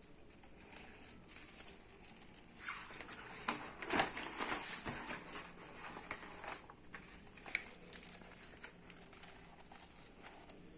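Faint rustling and handling noise with scattered small clicks, loudest from about three to five seconds in.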